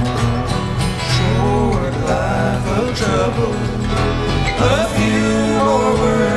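Background country music with acoustic guitar and a singing voice.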